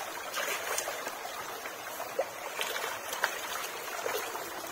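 Shallow muddy water trickling and splashing, with scattered small splashes and knocks as hands grope through the water and mud.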